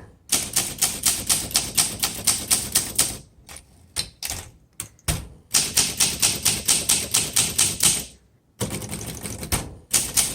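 1962 Olympia SM7 manual portable typewriter being typed on: quick runs of key strikes, about six a second, broken by two short pauses, one about three seconds in and one about eight seconds in.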